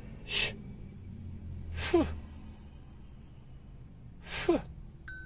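Three short breathy sighs from a man about a second and a half apart, the second and third falling sharply in pitch, over a low steady hum; a brief high beep just before the end.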